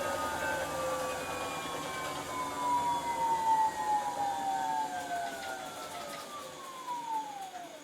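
Esatto front-loading washing machine's drum motor spinning down at the end of its final spin: a whine that falls steadily in pitch and fades, dropping away sharply near the end as the drum comes to rest.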